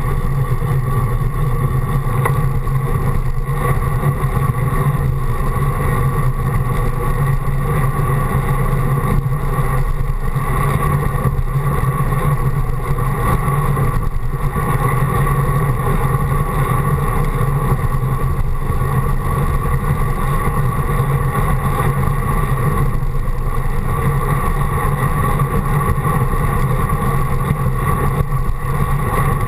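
Steady wind and road rush buffeting a handlebar-mounted GoPro on a road bike rolling at speed, with a constant low hum underneath and no break or change.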